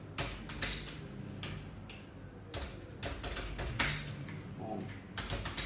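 Computer keyboard keys pressed one at a time at a slow, uneven pace, separate clicks a half second to a second or more apart.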